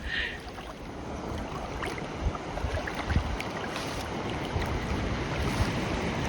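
Steady wind and sea noise at sea, with low bumps of wind on the microphone.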